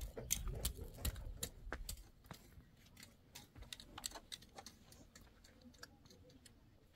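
Scattered light clicks and taps at an irregular pace, denser in the first couple of seconds, over a low rumble that fades out about two seconds in.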